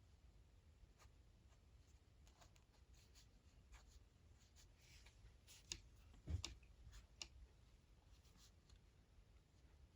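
Faint, scattered taps and light scratching of a stylus drawing on an iPad screen, with a louder knock about six seconds in.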